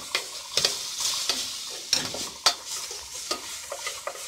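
A wooden spoon stirring an onion and tomato aderezo frying in oil in a stainless steel pot: a steady sizzle, with the spoon scraping and knocking against the pot roughly twice a second.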